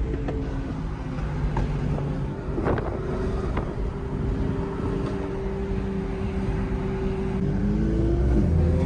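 Car engine running steadily at a constant pitch with road and wind noise while driving. The note eases down near the end, and there are a few faint clicks partway through.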